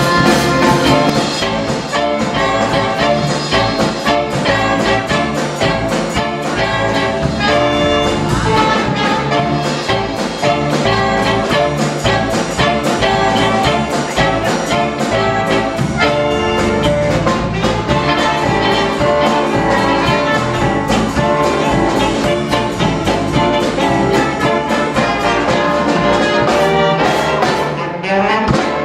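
High school jazz band playing live, a brass-led big-band sound of trumpets and trombones over a steady beat. The tune ends just before the close.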